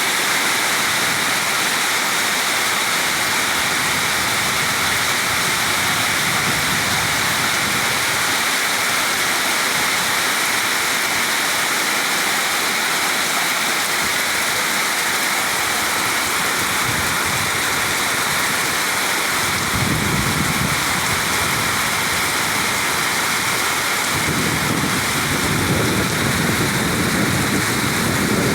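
Heavy rain falling steadily, a continuous even hiss. Low rumbling joins it twice, briefly about two-thirds of the way in and for a few seconds near the end.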